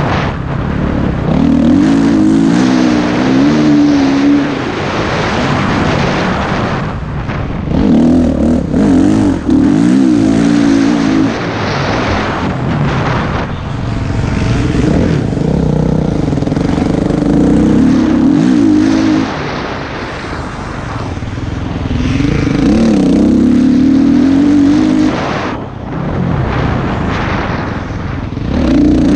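Motor-vehicle engines running and revving, pitch wavering with the throttle. The sound swells and fades several times, as machines come close and move off again.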